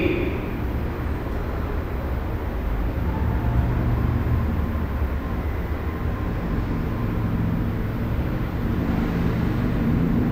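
Residential room tone: a steady low rumble with a faint hiss above it, and one brief higher-pitched sound right at the start.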